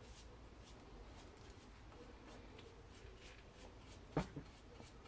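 Faint, irregular strokes of a flat paintbrush's bristles brushing a glossy finish onto a wooden handle. A sharp knock comes a little after four seconds in, followed by a smaller one.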